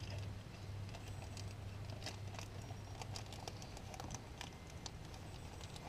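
Faint crinkling and small irregular clicks of a small plastic bag being handled as a new A/C Schrader valve core is taken out of it, over a low hum that fades away in the first half.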